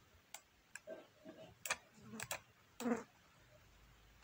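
A handful of quiet, sharp computer-mouse clicks at irregular intervals as a number is handwritten on screen with the cursor.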